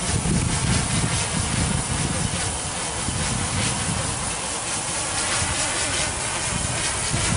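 Large quadcopter's DJI E1200 motors and propellers whirring in a hover, with a gusty low rumble underneath. The prop pitch wavers up and down in the second half as the motors keep changing speed, typical of a flight controller that is not yet tuned.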